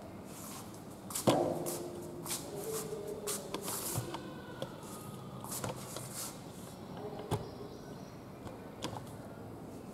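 Handling noises as a camera is moved and set up over a sewing table: a sharp knock with a short metallic ring about a second in, scattered clicks and rustling, and another sharp click near the end.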